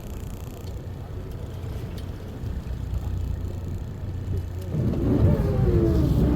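A boat engine running with a steady low hum, growing louder about three-quarters of the way through with a whine that falls in pitch.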